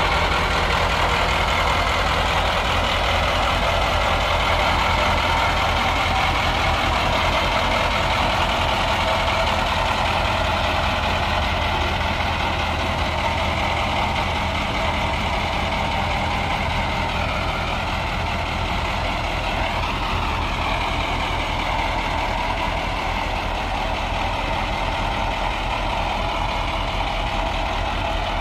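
1978 Ford 8000 dump truck's engine idling steadily, with an even, regular beat that eases a little about halfway through.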